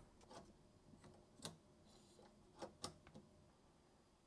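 Near silence with a few faint, irregular clicks: an SFP uplink cable being handled and plugged into the router and switch ports.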